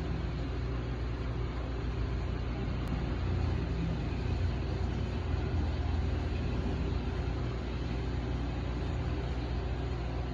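Reef aquarium equipment running: a steady low hum under a constant hiss.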